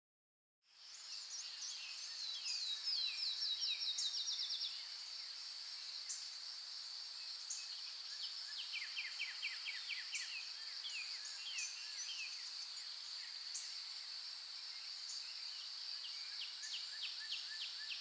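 Birds chirping and singing over a steady high-pitched insect drone, with a quick run of falling chirps two to four seconds in and scattered calls after that.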